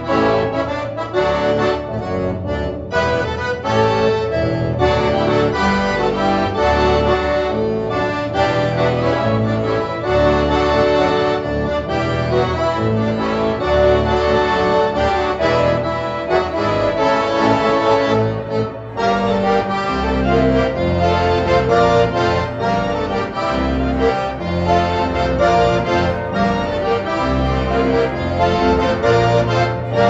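Electronic accordion playing a hymn tune, the melody in sustained reedy notes over steady bass notes.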